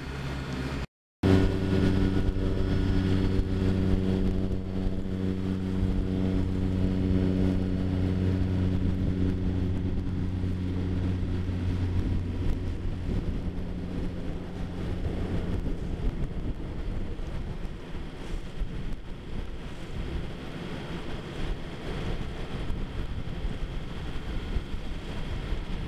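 Sailboat's inboard engine running steadily under way, a low even hum over wind and water rush. The hum fades about halfway through, leaving mostly the rushing noise.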